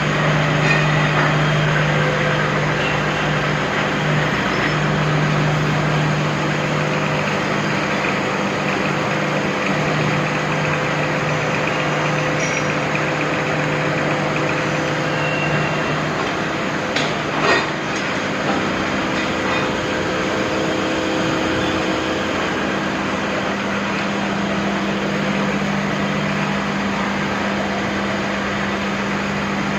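CNC turning centre running: a steady machine hum with a hiss over it. About halfway through there is a short click, and the hum shifts to a slightly higher pitch.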